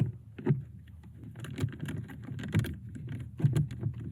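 Scattered, irregular clicks and knocks of a hand tool working a mounting bolt of a car's air-conditioning blower motor under the dashboard.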